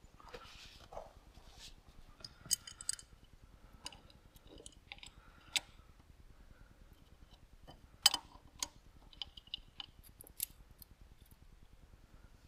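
Scattered sharp clicks and light clinks of small hard parts being handled during tractor maintenance, irregular, the loudest about eight seconds in.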